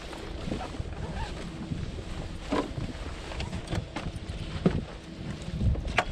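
Wind buffeting the microphone on an open boat deck, a steady low rumble, broken by a few short knocks and thumps on the deck about two and a half, four and a half and six seconds in.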